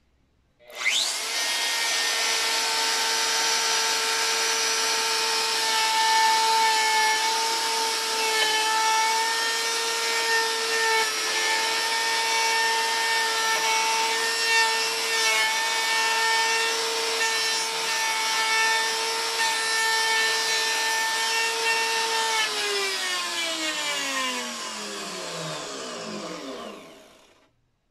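DeWalt DWP611 compact router's motor switched on, spinning up in about a second to a steady high whine while the bit cuts a hole into wood. Near the end it is switched off and its pitch falls as it winds down over about five seconds.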